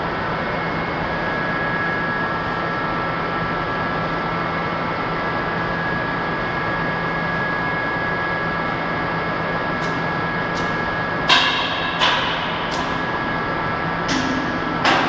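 Steady machine hum in a repair shop, with a low tone and a couple of higher held tones. From about ten seconds in, a series of sharp knocks comes roughly every 0.7 s, each with a short ringing tail.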